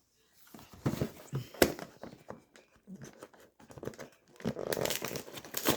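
A Cheez-It snack box being opened by hand: packaging tearing and crinkling in irregular crackles, with a denser run of crinkling near the end.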